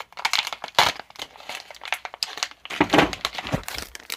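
Crinkly blind-bag wrapper of a Tsum Tsum keyring rustling and crackling in a series of quick crinkles as it is handled and opened. About three seconds in, dull bumps of the phone being handled.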